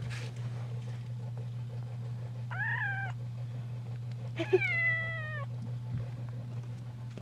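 Domestic cat meowing twice: a short meow that rises and falls, then a longer, drawn-out meow with a slightly falling pitch about two seconds later.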